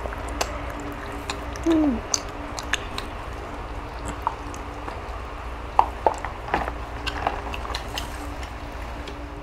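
People eating boiled chicken by hand: scattered small clicks, smacks and taps over a steady low hum, with a short low falling tone a little under two seconds in.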